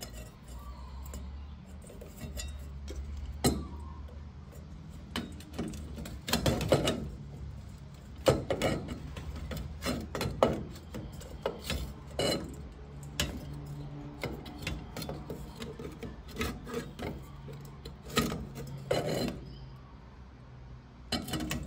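Scraping, rubbing and sharp clicks and knocks as a headlight unit and its rim are handled and worked into an MG TD's metal headlamp shell to catch the retaining hook. A low steady hum runs underneath.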